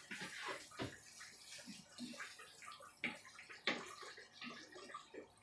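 Curry soup sloshing in a frying pan as a wooden spoon stirs it, with a few light knocks of the spoon against the pan.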